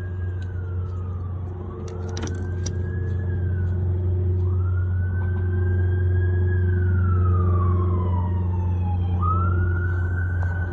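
A siren wailing, its pitch rising quickly, holding and then falling slowly, about four times over, above a steady low hum.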